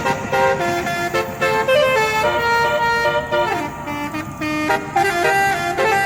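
Multi-tone telolet horn playing a quick melody, its notes stepping up and down every fraction of a second with a brief dip in the middle.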